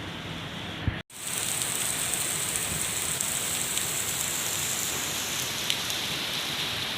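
Heavy rain falling steadily as a dense hiss. It breaks off for an instant about a second in and comes back louder and brighter.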